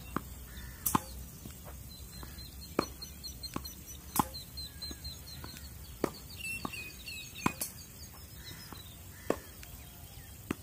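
Tennis balls struck by rackets on a court, a sharp pock every one to two seconds as balls are fed and hit back, with quieter bounces between. Birds chirp faintly in the background.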